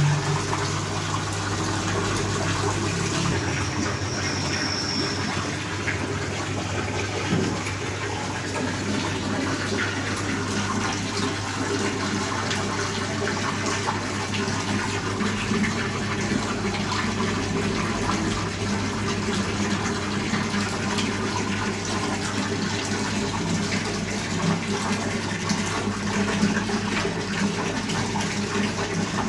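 Tap water pouring in a steady stream into a large metal dough-mixer bowl, over a steady low hum.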